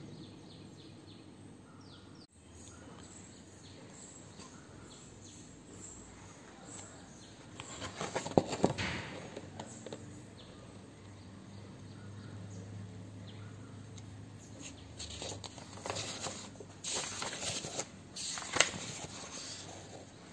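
Paper rustling as the pages of a textbook are handled and turned: one burst about eight seconds in and a longer run of rustles near the end, over a faint steady background.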